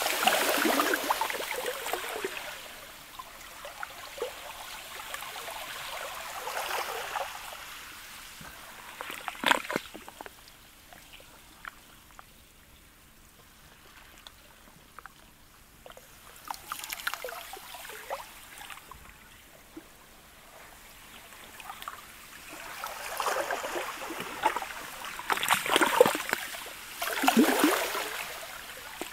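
Sea ice of slush and pancake floes lapping against the shore: slushy, crackling washes that swell and die away, with a sharp splash about ten seconds in, a quiet lull in the middle, and several close washes near the end.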